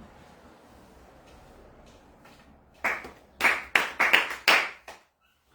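Ritual hand clapping of Konkokyo worship (kashiwade): a quick, slightly uneven run of about six sharp claps starting about three seconds in. This clapping marks the start of a prayer to Kami.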